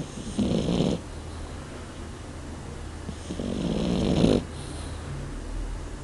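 French Bulldog puppy snoring in its sleep: a short snore about half a second in, then a longer one about three seconds in that grows louder before breaking off.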